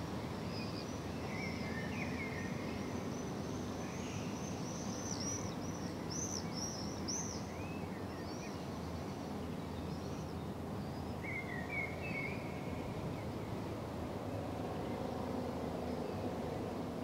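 Steady outdoor background hiss with small birds chirping: a run of quick high chirps through the first half and a short twitter about twelve seconds in.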